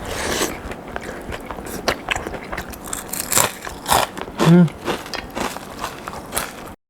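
Crisp fried potato sticks being bitten and chewed, a run of sharp irregular crunches. A short vocal sound comes about four and a half seconds in.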